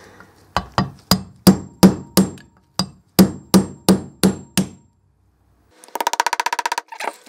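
Hammer tapping a steel chisel against the old inner steering-head bearing race on the lower steering stem to work it off. About a dozen sharp metallic strikes come at roughly three a second, each with a brief ring. After a short pause, a fast rattling buzz follows near the end.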